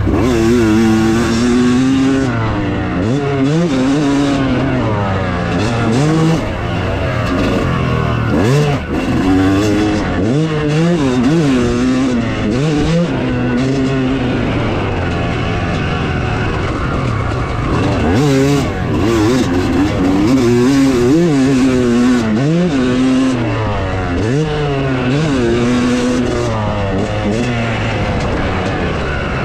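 Yamaha YZ250 two-stroke dirt bike being ridden hard, its engine revving up and dropping back about every couple of seconds.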